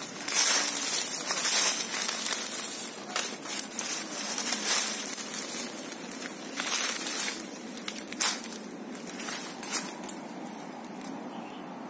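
Footsteps crunching and rustling through dry bamboo leaf litter and undergrowth, in irregular crackles that die away near the end to a steady low hiss.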